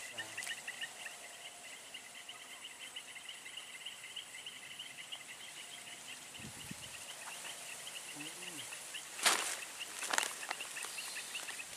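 Insects chirping steadily in a fast pulsing trill, several chirps a second, over a soft outdoor hiss as light drizzle falls on a pond. About nine seconds in, a short sharp burst of noise, followed a second later by a smaller one.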